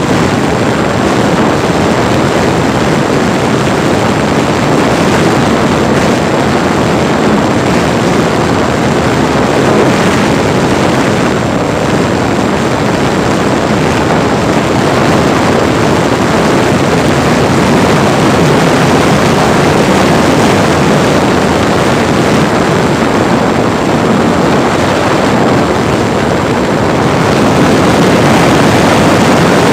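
Steady rush of air and the brushless electric motor and propeller of a Parkzone T-28D Trojan RC plane in flight, heard loud from a camera riding in its cockpit.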